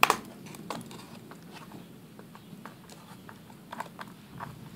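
Sharp plastic clicks and light scraping as the 2007 white MacBook's polycarbonate top case is pried up along its edge with a sharp tool, its small retaining tabs snapping free. A loud click comes right at the start, then smaller scattered clicks.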